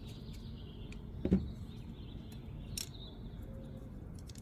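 A single sharp knock about a second in, with a few faint clicks around it, as a small folding knife and its parts are handled on a work surface during disassembly and reassembly.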